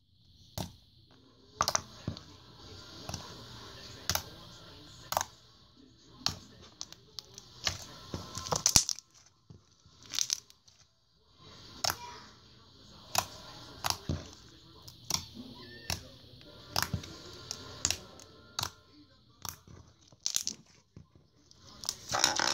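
Bubbly purple fluff slime being squeezed and poked by hand. It gives irregular sharp pops and clicks, about one a second, as trapped air bubbles burst, with a crackling hiss between them.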